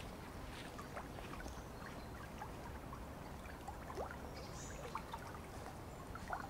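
Small woodland stream flowing steadily, with a few faint, scattered short ticks and chirps over it.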